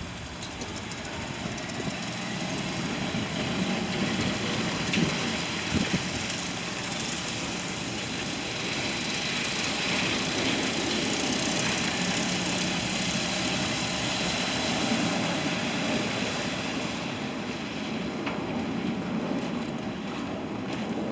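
Street traffic: vehicles passing with a steady wash of road noise that swells in the middle and eases near the end.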